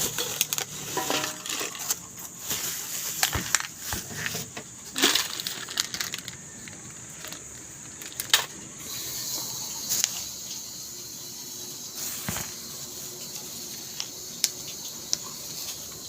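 Handling sounds while unboxing a grinder: rustling with scattered clicks and knocks. From about nine seconds in a steady high hiss sits under them.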